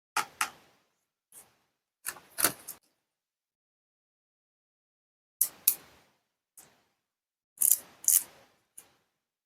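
Small plastic toy pieces being handled and set down: sharp clicks and taps in short bursts of one to three, with dead silence between.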